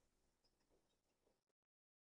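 Near silence: a very faint fading room tail, then complete digital silence about a second and a half in.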